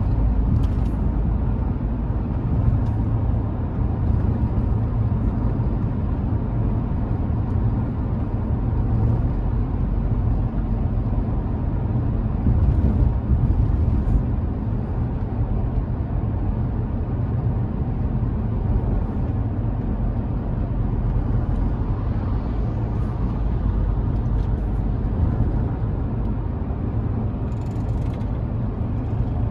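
Steady road and tyre noise from a moving car, heard from inside the cabin: an even low rumble with no let-up.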